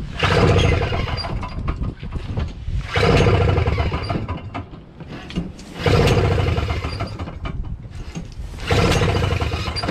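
Toro Snow Commander snowblower's 7 hp R-Tek engine being pull-started on its recoil starter four times, about three seconds apart, cranking over without firing. With the kill wire disconnected it still shows no sign of starting, which the owner takes for a failed magneto (ignition coil).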